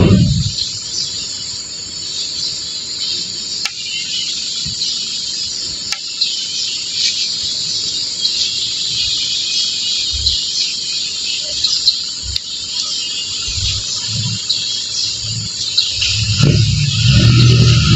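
Steady high chirring of insects throughout. Near the end, a truck engine comes up with a low rumble.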